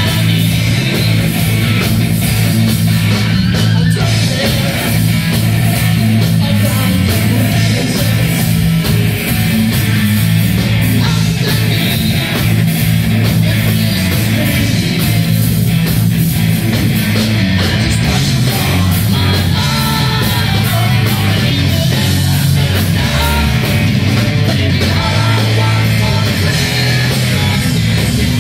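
Heavy metal band playing live, loud and steady: electric guitars and drum kit, with a lead singer.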